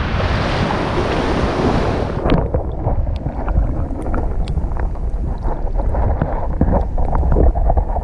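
Shallow surf washing over a reef flat with a hissing wash; about two seconds in the microphone goes under water and the hiss cuts off, leaving a muffled low rumble of moving water with scattered crackling clicks.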